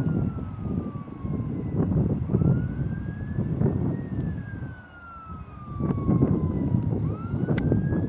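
A distant siren wailing slowly, each cycle rising quickly and then falling off over two to three seconds. A heavy low rumble of wind on the microphone runs under it, and there is a sharp click near the end.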